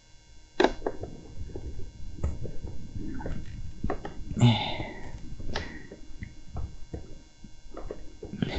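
Plastic tiller housing and display panel of a mobility scooter being handled and fitted by hand: scattered light clicks, knocks and rubs of plastic against plastic and metal. About four and a half seconds in there is a short, louder voice-like sound.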